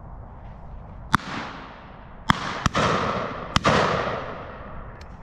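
Shotgun shots: four sharp reports within about two and a half seconds, two of them close together, each followed by a long rolling echo. A fainter report comes near the end.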